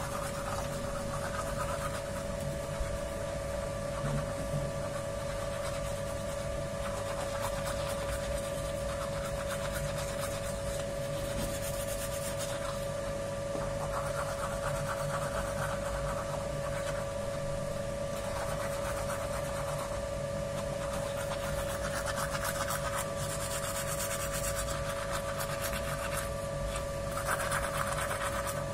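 Toothbrush scrubbing teeth, scratchy brushing strokes coming in spells, over a steady hum.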